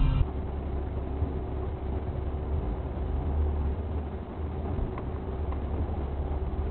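Steady engine and road rumble of a car driving, heard from inside the cabin.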